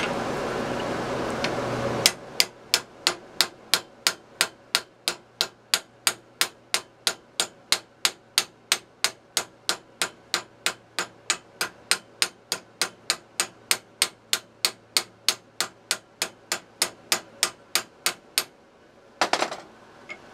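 Hand hammer striking a red-hot steel spoon-bit blank down into a bending die, forging the bend: an even run of sharp blows at about three a second that starts after a couple of seconds of steady rushing noise and stops near the end, followed by a brief cluster of metal clinks.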